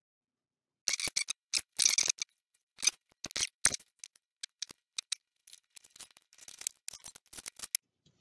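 Irregular crisp clicks and scratchy crackles from fingers pressing and working a thin cut sheet of balsa wood, starting about a second in and lighter after the first few seconds.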